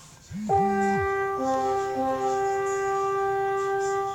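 A sustained horn-like musical chord. A short low note slides in, then steady tones hold for about four seconds, with a brief lower two-note figure about a second and a half in.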